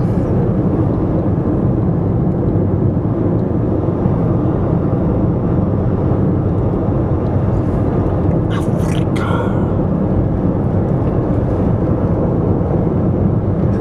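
Steady rumble of a car driving on a paved road: engine, tyre and wind noise at an even level. A brief higher sound comes about nine seconds in.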